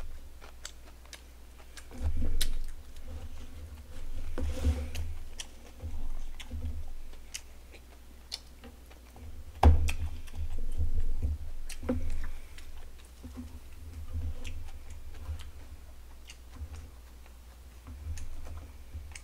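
Close-miked chewing and lip-smacking on barbecued pork trotters, with many sharp wet mouth clicks throughout. Dull low thuds come every second or two, the loudest about ten seconds in.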